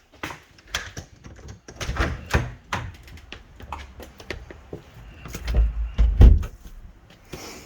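Footsteps and knocks of someone moving about, with a door opening and closing; the heaviest thumps come about two seconds in and again around five to six seconds in.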